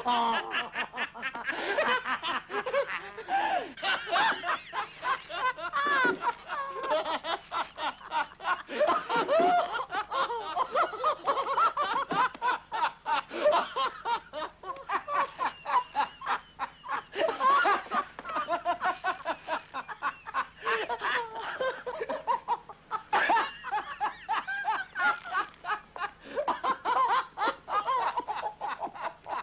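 Two men in a long fit of helpless laughter, one of them drunk, the laughs coming in rapid pulses without a break, on an old 1930s film soundtrack.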